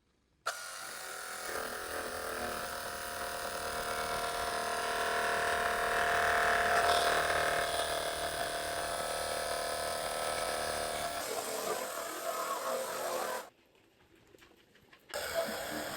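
Cordless battery-powered pressure washer's electric motor and pump running with a steady whine. It stops for about a second and a half near the end, then starts again.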